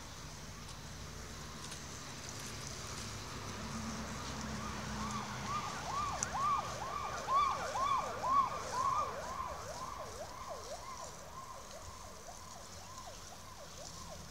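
A siren in a fast rising-and-falling yelp, about two to three sweeps a second. It swells in about four seconds in, is loudest in the middle, then fades away.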